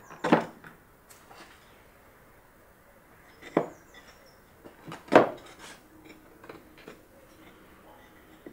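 Wooden slats being set down by hand onto a wooden drawer frame: a few sharp wooden knocks and clacks, the loudest about five seconds in, with quiet between.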